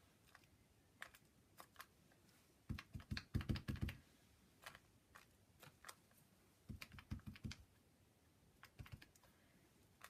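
Light taps and clicks of a small foam doodle stamp, mounted on a piece of credit card, being dabbed in white paint and pressed onto a journal page. They come in short clusters of quick taps, the densest about three seconds in and again about seven seconds in.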